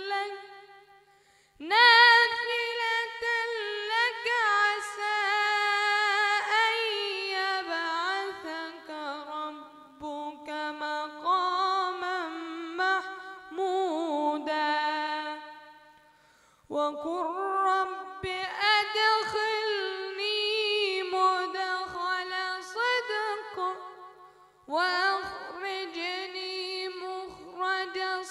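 A boy's high voice reciting the Quran in a slow, ornamented melodic chant, drawing out long held and wavering notes. It breaks off for breath three times: near the start, a little past halfway, and near the end.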